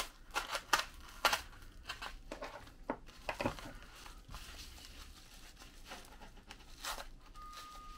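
A folding knife slicing open a padded paper mailer, then the mailer's paper crinkling and rustling as hands pull it open. There are several sharp crackles in the first second and a half.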